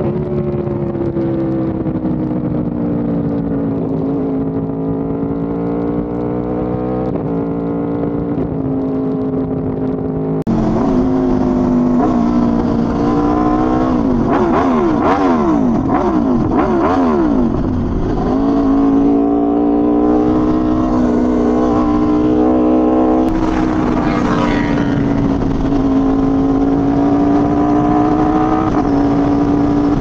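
1100cc sport motorcycle engine running through an SC Project aftermarket exhaust, recorded close to the exhaust while riding. It holds a steady note with a few short drops in pitch in the first ten seconds, grows louder about ten and a half seconds in, and rises and falls in pitch through the middle.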